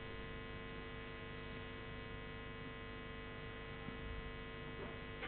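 Faint, steady electrical mains hum in the microphone and sound system, a low buzz made of many even tones held unchanged, over quiet room tone.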